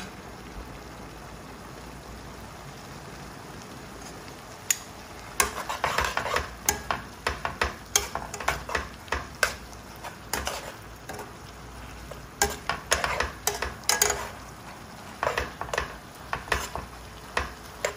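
Metal tongs tossing spaghetti and clams in a sizzling sauté pan. A steady sizzle comes first; from about five seconds in, quick clicks and scrapes of the tongs against the pan follow in two runs, with a short lull between them.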